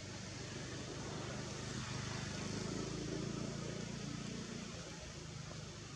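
A motor engine hums steadily over background noise, growing a little louder in the middle and easing off towards the end.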